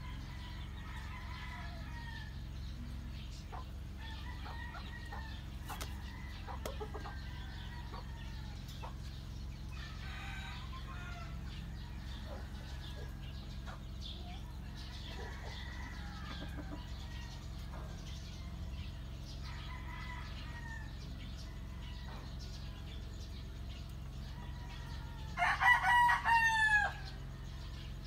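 A rooster crowing loudly near the end, one crow about a second and a half long, with several fainter crows earlier over a steady low hum.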